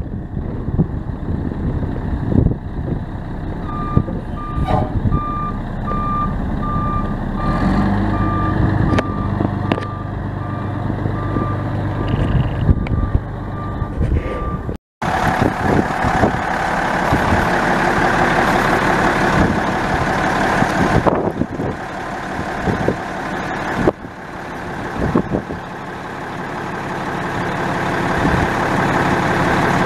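1993 Ford L8000 yard truck's Cummins 8.3-litre six-cylinder turbo diesel running while its backup alarm beeps over and over, the sign the truck is in reverse. After a brief cut near the middle, the backup alarm is gone and the diesel runs louder.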